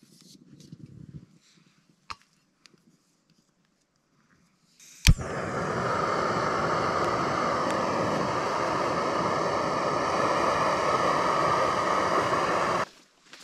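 Fire Maple canister gas stove lit with one sharp pop about five seconds in, then its burner running with a steady loud hiss that cuts off suddenly near the end. Before that, a few light clicks and rustles as the burner is screwed onto the gas canister.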